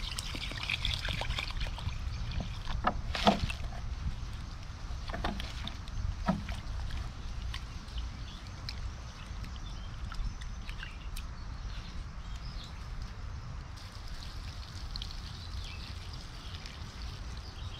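Sticks of firewood being handled, with scattered snaps and knocks, the loudest about three seconds in, over a steady low rumble.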